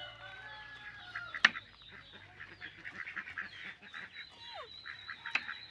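Farmyard poultry calling in the background, a dense run of short honking and clucking calls, with two sharp knocks, the louder about one and a half seconds in and another near the end.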